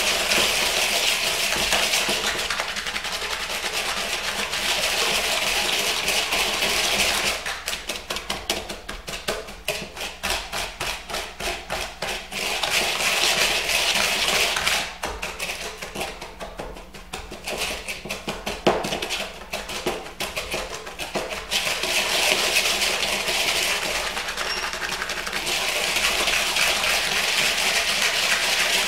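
Wire whisk stirring a dry spice rub of salt, brown sugar and ground spices in a plastic bowl: a steady gritty hiss. About a quarter of the way in, and again past the middle, it turns to runs of quick ticks as the wires strike the bowl, then goes back to the hiss.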